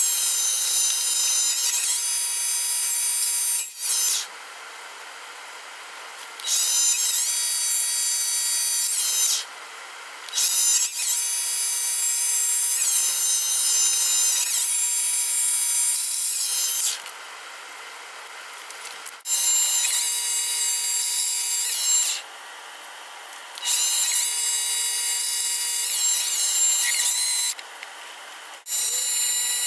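Mini lathe cutting aluminium: a loud, high-pitched cutting sound in repeated passes of a few seconds each, broken by pauses where only the steady whine of the running spindle motor is left. A new pass starts again near the end.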